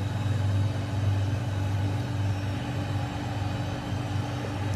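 Steady engine drone heard from inside a vehicle: a constant low hum with a few faint steady tones above it.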